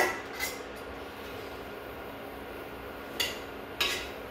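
Kitchen utensils and dishes clinking against each other: a sharp clink at the start, a lighter one just after, then two more about three seconds in, over a faint steady hum.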